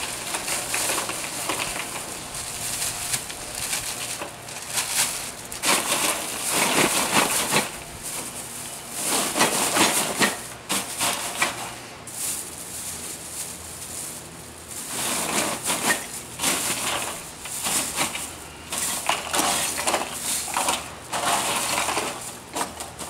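Ice cubes clattering and crunching as they are put into plastic bags in a cooler, with the bags crinkling, in irregular bursts.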